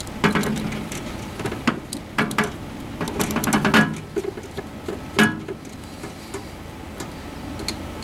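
Screwdriver and hands working the screw terminals of a rotary switch in a laser cutter's metal control panel: scattered clicks and clinks of metal, busiest about three to four seconds in and again around five seconds.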